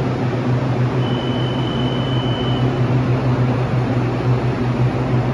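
Taiwan Railway EMU800 electric commuter train standing at the platform, its onboard equipment giving a steady low hum. A single high steady beep starts about a second in and lasts under two seconds, as the doors open.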